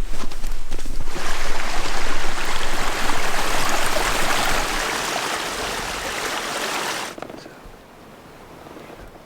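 A steady, loud rushing noise that cuts off suddenly about seven seconds in, leaving a much quieter background.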